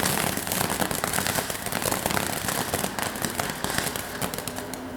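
Small consumer fireworks crackling: a dense, rapid run of many sharp pops and crackles that thins a little near the end.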